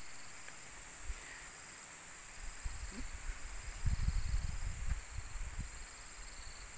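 Steady high-pitched insect buzz with faint, evenly repeating chirps above it. From about two and a half seconds in, uneven low rumbling sounds on the microphone.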